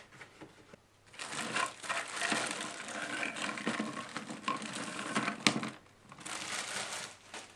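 Clear plastic bag crinkling and rustling as hands work it open and pull it off vinyl model-kit parts. It comes in two spells with a short lull between them, and there is a single sharp click about five and a half seconds in.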